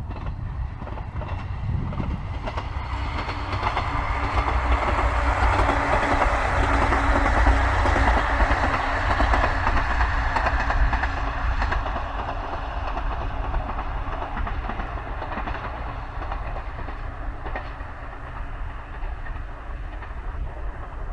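Diesel train on the JR Shikoku Tokushima Line passing by, swelling to its loudest about eight seconds in and then slowly fading away.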